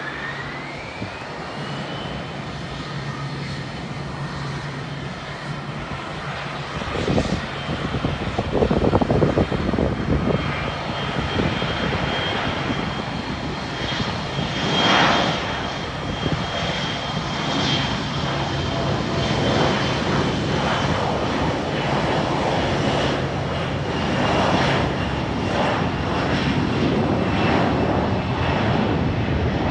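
Jet engines of an Embraer E175 (GE CF34 turbofans) at takeoff power on the takeoff roll: a whine rises in pitch over the first couple of seconds as the engines spool up, then holds steady over a broad roar, with gusty surges in the roar about a quarter of the way through.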